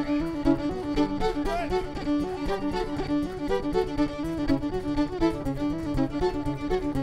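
Irish traditional band playing a tune, fiddle carrying the melody in quick runs of notes over accompaniment.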